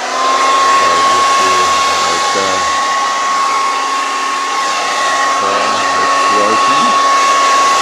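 Repaired Revlon hair dryer running: a loud steady rush of air with a steady motor whine that climbs to pitch as it is switched on, then holds. It runs normally, with nothing wrong.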